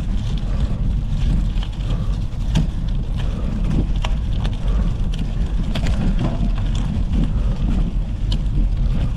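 Gravel bike riding over a gravel track: a steady rumble of wind on the GoPro's microphone and the tyres rolling, with scattered sharp clicks of stones under the wheels.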